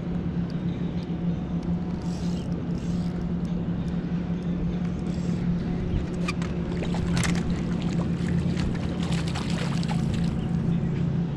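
Boat's outboard motor running with a steady low hum. In the second half, a hooked fish splashes at the surface as it is scooped into a landing net.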